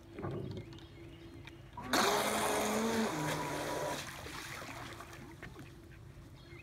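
Helion Rivos electric RC boat at a burst of throttle: motor whine and hull spray start suddenly about two seconds in, drop a step in pitch about a second later, then fade out as the boat coasts.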